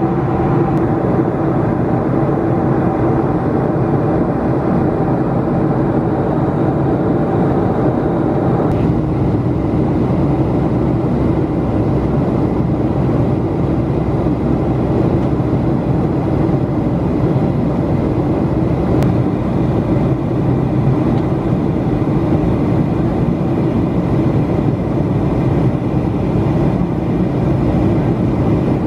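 Steady cabin drone of a Boeing 737-500 airliner in flight, its CFM56-3 turbofans humming under a constant rush of air. A higher note in the hum drops out about nine seconds in.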